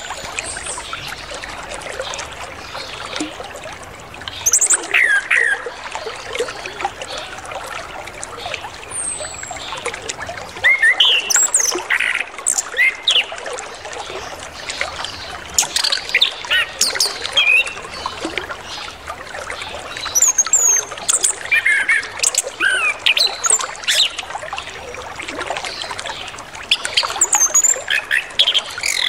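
Orange-headed thrush singing in short, loud clusters of varied whistled and sweeping phrases, a song packed with mimicked phrases, over a steady trickle of flowing water.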